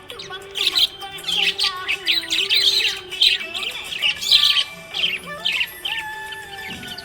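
Budgerigar chirping: a quick run of short chirps gliding up and down in pitch, over faint steady tones underneath.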